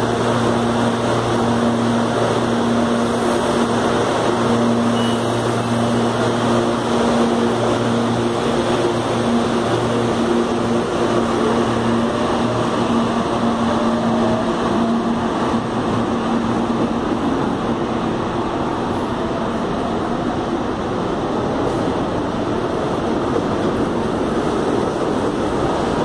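Electric commuter trains running through a station, with a steady rumble of wheels and running gear throughout. A red-and-silver multiple unit's steady electric hum fades as it pulls away. Later an orange CPTM train moves off with a rising electric whine as it picks up speed.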